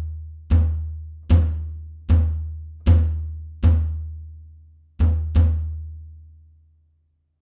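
Free-floating walnut bass drum tuned high, kicked with a pedal beater. Five evenly spaced kicks come about 0.8 s apart, then two quick kicks close together. Each kick is a sharp attack followed by a ringing low note that fades, and the last one dies away near the end.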